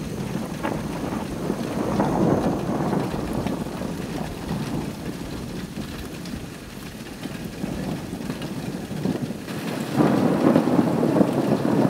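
Thunderstorm: thunder rumbling and rolling over steady rain, growing louder about ten seconds in.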